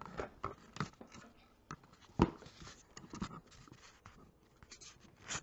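Handling noise as the camera is moved: faint scattered rustles and light clicks, with one sharper knock about two seconds in.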